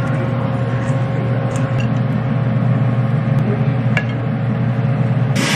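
Steady low hum of a kitchen appliance motor running, with a faint steady tone above it and a light tap about four seconds in. A loud hiss starts just before the end.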